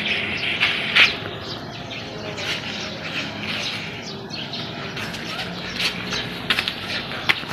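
Outdoor background noise with birds chirping in short, sharp calls at irregular intervals, a quick cluster of them near the end.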